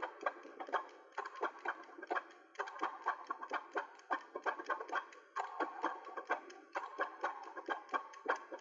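Multi-tracked accordions playing short, rapid staccato notes in a driving rhythm, several a second.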